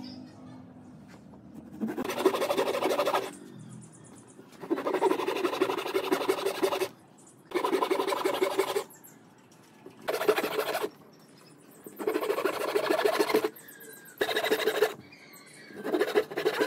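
Hand saw cutting through a thin wooden strip in about seven short bouts of quick rasping strokes, each one or two seconds long, with brief pauses between cuts as the strip is moved along to cut off the next small block.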